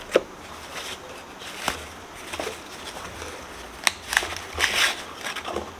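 Packaging being handled: tissue paper and a foam wrap sheet rustling and crinkling as they are pulled off a hand blender, with a few sharp clicks and knocks from the cardboard insert and a longer rustle near the end.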